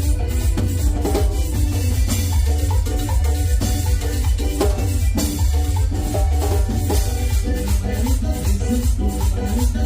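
A band playing a Latin dance song live through a PA system, with heavy bass and a steady percussion beat.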